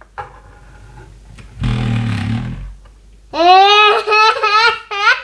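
A man's low voice briefly, then a young child's high-pitched voice in several drawn-out, pitch-gliding syllables, like a toddler babbling or trying to repeat a word.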